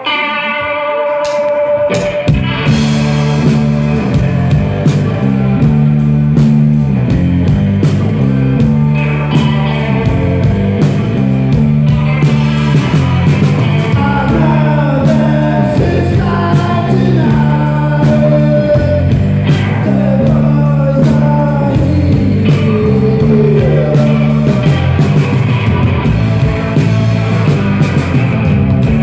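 Live rock band playing: a lone electric guitar at first, then about two seconds in the drums and the rest of the band come in together and play on.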